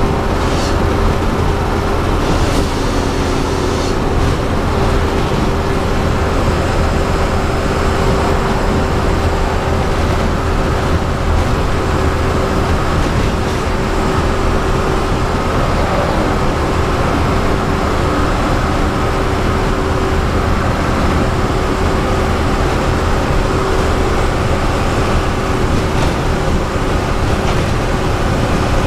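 Bus engine and road noise heard from the driver's seat while cruising on a highway: a steady drone with a constant low rumble and an even tone throughout.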